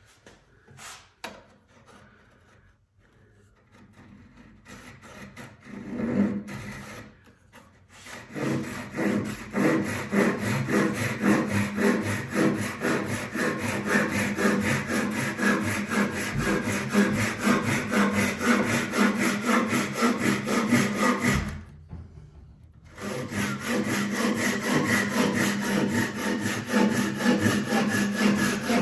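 Japanese pull saw cutting through wood with quick, steady strokes, after a few scattered handling knocks. The sawing stops briefly about three-quarters of the way through, then carries on.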